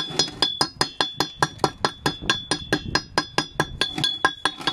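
Chipping hammer rapidly striking a fresh weld bead around a pipe collar on a steel gas cylinder, knocking off the slag, about five blows a second. The hollow cylinder rings with a steady high tone after each strike.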